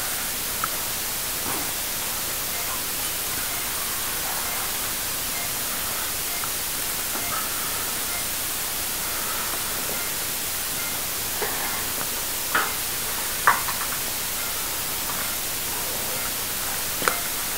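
Steady hiss throughout, with a few short clicks and taps of surgical instruments, two of them close together about two-thirds of the way in.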